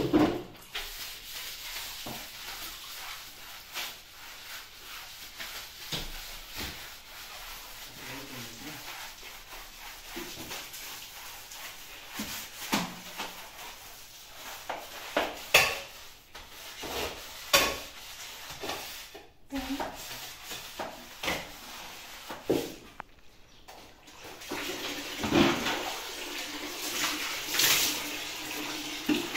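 Broom scrubbing wet ceramic wall tiles: a rough swishing, broken by repeated scraping strokes and sharp knocks of the head against the tile.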